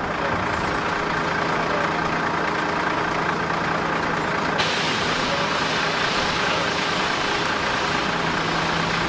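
Fire burning through a fire truck inside its station bay, a steady rush of noise with a low hum under it. About halfway through, a loud hiss starts abruptly and holds.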